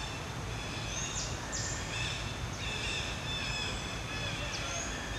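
Birds calling in the trees: short, high chirps and quick down-sweeping whistles, repeated several times, over a steady low background hum.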